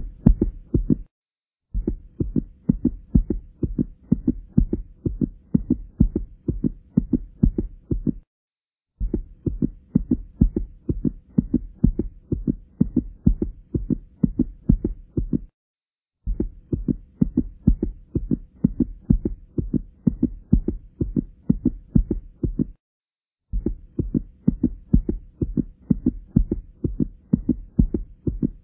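Looped soundtrack of rhythmic, low, heartbeat-like thumping pulses, about two strong beats a second. The loop runs in stretches of about six and a half seconds broken by brief silences, three times.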